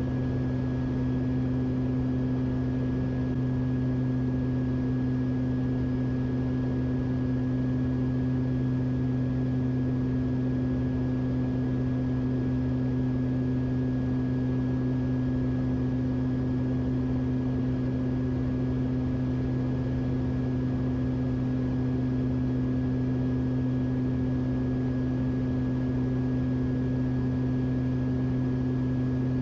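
Beechcraft King Air's twin PT6A turboprop engines and propellers running at a steady cruise-descent power, heard inside the cockpit as an unbroken low drone with a thin high whine above it.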